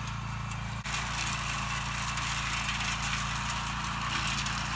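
Walk-behind brush mower's small engine running steadily as it is pushed through dry brush. About a second in, the sound gets louder and harsher.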